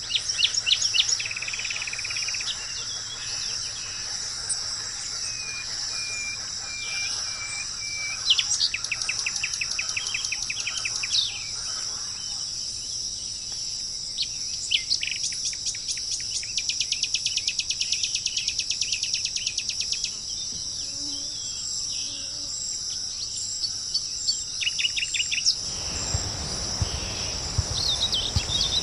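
Wild songbirds singing rapid trills and repeated chirps over a steady high-pitched insect chorus. Near the end a low rushing noise suddenly joins in.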